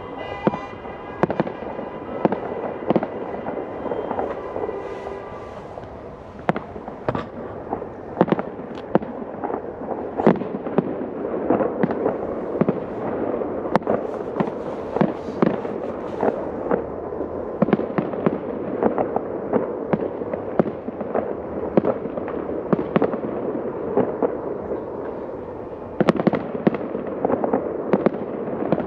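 Aerial fireworks shells bursting over a city in quick succession, a steady run of sharp bangs and crackles. A held tone with several pitches sounds through the first five seconds or so.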